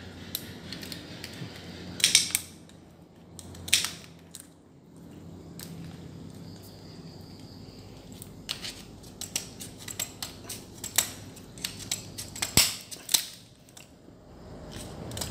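Mud crab shell being cut and cracked with kitchen scissors: sharp snips and crunches in scattered clusters, the loudest about two and four seconds in, then a quick run of them from about eight to thirteen seconds.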